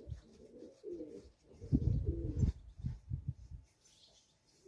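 Homing pigeons cooing in short repeated phrases, with a few low thumps about two seconds in.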